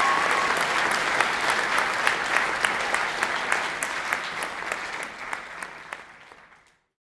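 Audience applauding, many individual claps heard in the clatter, tapering off and fading out about six seconds in.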